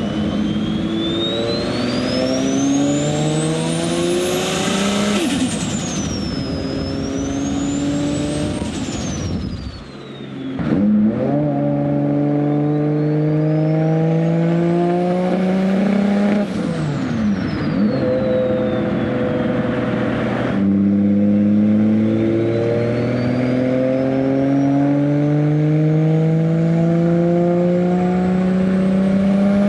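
Nissan Skyline R32 GTR's big single-turbo RB26 straight-six pulling hard through the gears, its pitch climbing in repeated runs broken by gear changes and a brief lift off the throttle about ten seconds in. Over the engine a high turbo whistle rises with each pull and falls away at each shift.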